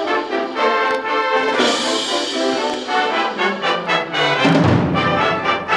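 High school wind band playing from a 1965 LP recording, with the brass to the fore and a full, sustained ensemble sound. A low swell comes in the bass about four and a half seconds in.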